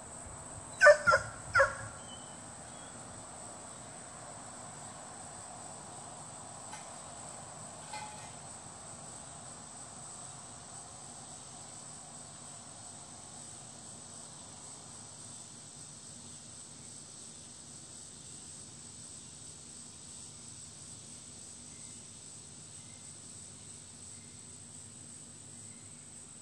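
Steady high, even insect chirring of crickets in the outdoor background, with three short, loud animal calls in quick succession about a second in.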